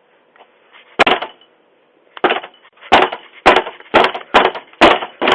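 Heavy blows on a front door, heard through a Ring doorbell camera's microphone: one about a second in, then a fast run of about seven more at roughly two a second.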